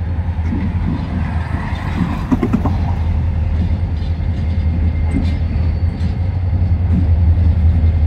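Diesel locomotive's EMD two-stroke engine running with a steady low rumble as the GP40-3 crawls toward the listener, growing slightly louder toward the end.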